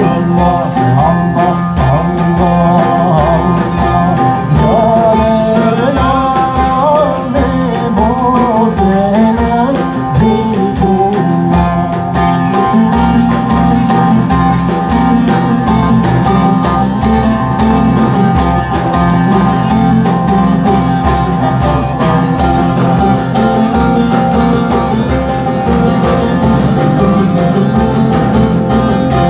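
Live Sufi devotional song: a frame drum keeps a steady beat under a plucked lute, with a wavering sung melody over them for several seconds about a quarter of the way in.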